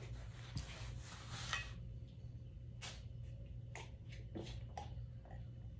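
Faint rustle of a paper towel wiping the mouth, then a few short, faint sips and swallows from a drinking glass.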